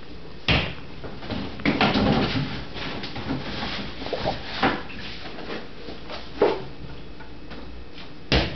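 Refrigerator door opened and a plastic gallon milk jug taken out: a few separate knocks and clunks from the door and shelf contents. There is a rattle about two seconds in and a sharp knock near the end.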